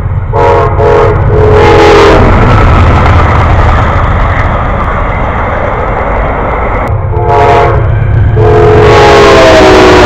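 Amtrak GE Genesis locomotive's air horn sounding a few short blasts and then a longer one as the passenger train passes at speed, with the loud noise of the cars rolling by. The horn sounds again from about seven seconds in, a short blast followed by a long one whose pitch falls slightly.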